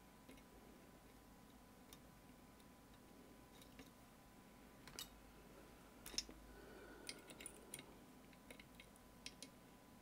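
Faint, irregular small metallic clicks and ticks from lock picks working inside a 13-pin lock and from the picking tools being handled, with the sharpest click about six seconds in and a quick run of small clicks just after.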